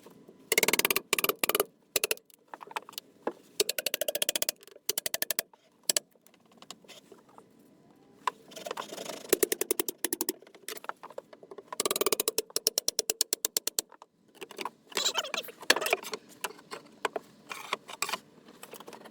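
Power driver backing out wood screws in short bursts of rapid, even clicking, several times with pauses between.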